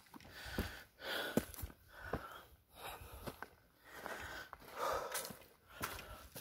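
A person climbing stone steps, breathing hard in and out about once a second, with footfalls landing on the steps.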